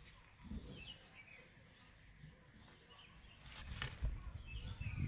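Faint outdoor ambience with a few short bird chirps. There is a soft low thump about half a second in, and a low rumble that builds near the end.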